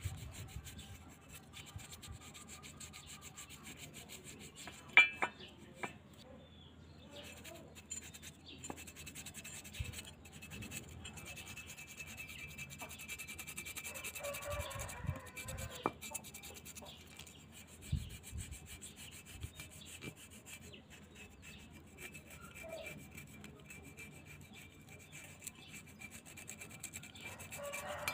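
A frayed wooden stick brush scrubbing a wet, rusty metal motorcycle pedal bracket: a steady rubbing and scraping. One sharp knock about five seconds in.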